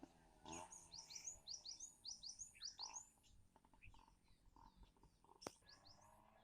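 Faint bird chirps: a quick run of short, high, repeated notes over the first three seconds, then scattered softer calls, with a single sharp click about five and a half seconds in.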